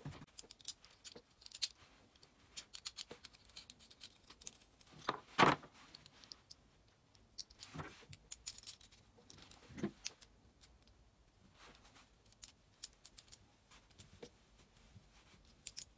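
Small screws, a lock nut and a metal wedge bracket being handled and fitted by hand: scattered light clicks and taps of small hardware, with three louder knocks spread through.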